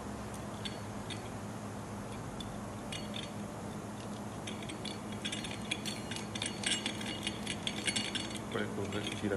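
Light metallic clinks and rattles as a pendant lamp's metal canopy is fitted and worked along its threaded stem, sparse at first and much busier from about halfway through. A steady low hum runs underneath.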